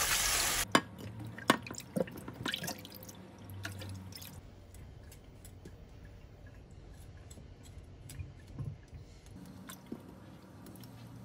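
Kitchen tap running into a pot holding hairtail pieces, shut off abruptly under a second in; then water dripping and small splashes in the pot, with scattered light clicks as the wet fish pieces are handled.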